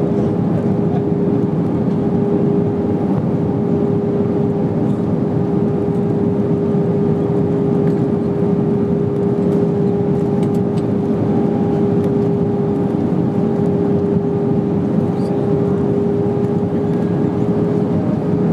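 Airbus A320 cabin noise on final descent: a steady roar of engines and airflow with a constant droning tone over it.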